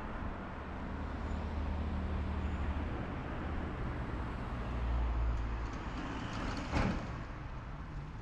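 Road traffic: cars passing on a street, a steady low rumble of engines and tyres that swells and fades, with a single sharp knock near the end.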